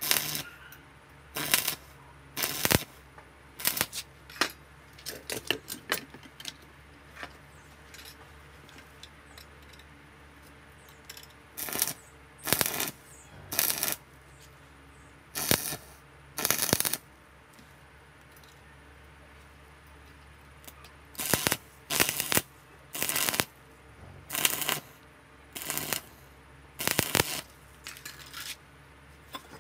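Stick (arc) welding on scrap iron in short strikes: the electrode's arc crackles and spits for under a second at a time, over and over as tack welds are laid, with pauses between. A faint steady low hum runs underneath.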